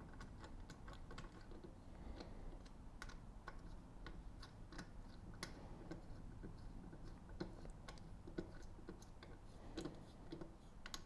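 Faint, irregular light clicks and taps of hand tools and metal parts being handled during bicycle mid-drive motor assembly.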